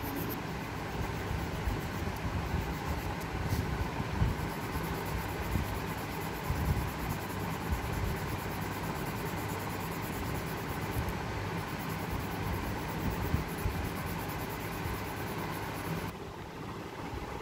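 Steady low rumble with a faint hum and hiss of background noise.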